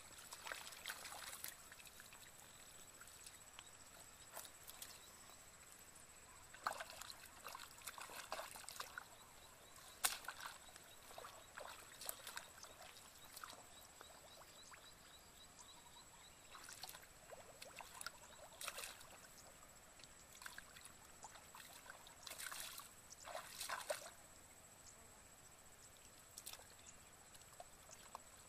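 Faint splashing and sloshing of shallow muddy paddy water in irregular bursts, from legs wading and hands groping through it.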